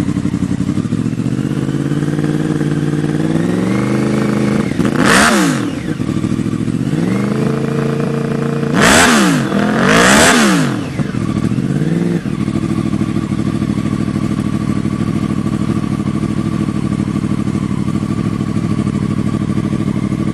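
Yamaha R1's inline-four engine and exhaust idling, then revved: a slow climb to a loud peak about five seconds in, and two quick blips around nine and ten seconds, each dropping back to idle. It then idles steadily for the rest.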